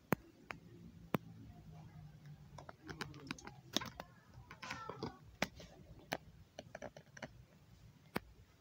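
Irregular sharp clicks and taps, about a dozen, scattered unevenly over a faint low hum.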